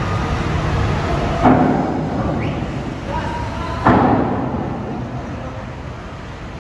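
Two loud bangs about two and a half seconds apart, each dying away briefly, over a steady low vehicle rumble.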